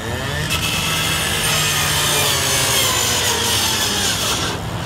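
Fire hose spraying water onto a burning car: a loud hiss that starts about half a second in and stops shortly before the end, over a steady low hum.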